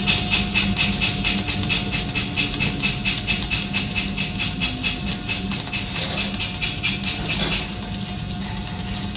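Flux-cored arc welding on a vertical butt joint, root pass forming the back bead: a crackling hiss that pulses about three times a second. The arc stops about seven and a half seconds in, leaving a steady hum.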